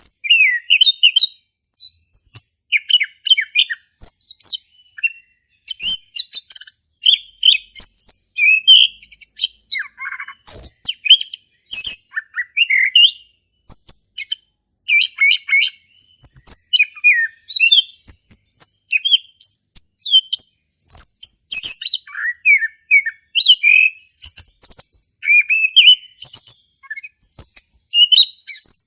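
Male chestnut-capped thrush (anis kembang) singing a long, continuous full song of rapid, varied whistled phrases and trills with hardly a pause.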